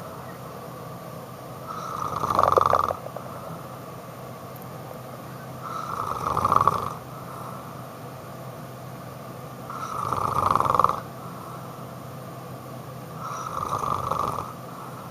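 Snoring: four snores about four seconds apart, each swelling over about a second and then stopping.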